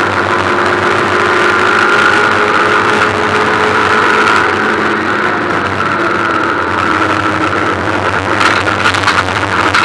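Ford Puma Cup race car's four-cylinder engine running hard at track speed, heard from inside the stripped, roll-caged cabin. The engine note shifts slightly in pitch about four seconds in, and a few brief knocks come near the end.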